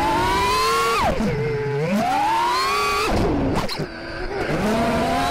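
Armattan Rooster 5-inch FPV quadcopter's brushless motors and propellers whining in flight. The pitch climbs and falls with the throttle, drops sharply about a second in and again around three seconds in, and turns briefly low and choppy just before four seconds.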